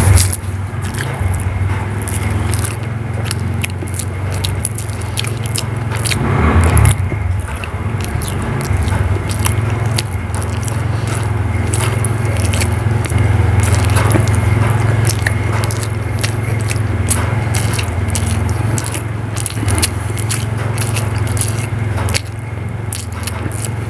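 A person chewing and biting hard-boiled eggs in spicy gravy, with many small mouth clicks throughout, over a steady low hum.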